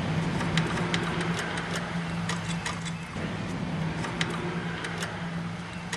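Lawn tractor's small engine running steadily, with a few light irregular clicks over it.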